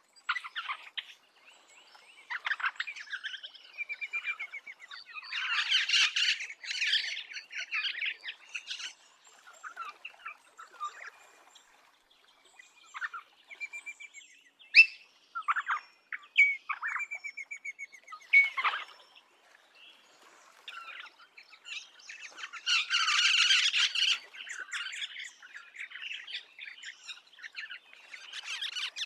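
Rosella calling: bursts of fast chattering and squawky notes, with short clear whistled notes in between. The loudest chatter comes about six seconds in and again near the end.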